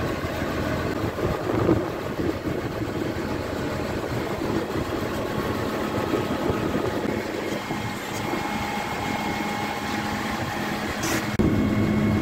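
Massey Ferguson 6499 tractor's diesel engine idling steadily, a little louder near the end.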